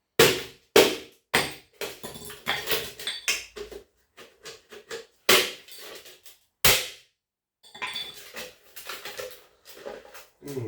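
Hatchet chopping at a scrap electric motor to break it open for its copper. There are three sharp strikes in the first second and a half, then lighter clattering, two more hard strikes about five and seven seconds in, and rattling handling of the metal and plastic near the end.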